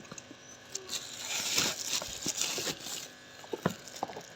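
Tumbler packaging rustling and crinkling as it is opened by hand, with a few small clicks and taps; the rustling is loudest about a second in and lasts around two seconds.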